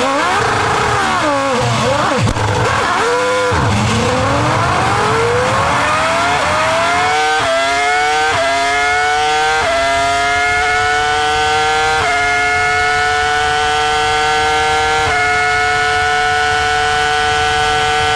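Ferrari V10 racing engine at high revs. Its pitch swings up and down over the first few seconds, then climbs through several quick upshifts, each a brief dip in pitch, and settles into a high, steady note.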